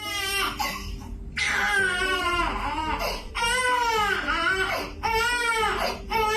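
A baby crying in a run of about five wails, each rising and falling in pitch, the longest lasting about a second and a half.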